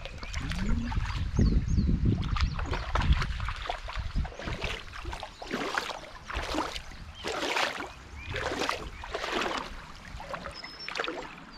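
Wading steps through shallow creek water: a slosh and splash about once a second, with a low rumble of wind on the microphone in the first few seconds.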